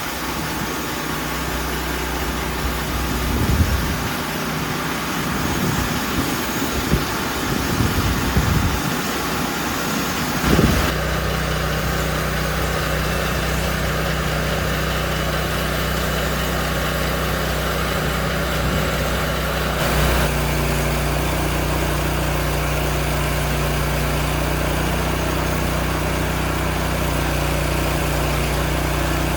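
Portable band sawmill's gasoline engine running steadily. For the first ten seconds or so it is uneven, with a few low thumps, and from about eleven seconds in it settles into an even drone.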